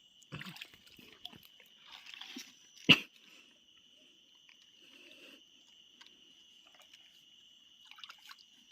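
A steady high-pitched insect trill from night insects, with scattered rustling and handling noises and one sharp knock about three seconds in.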